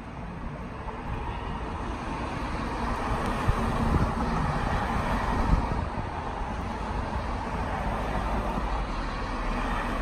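Steady street traffic noise, a low rumble with a hiss that grows louder over the first few seconds and then holds.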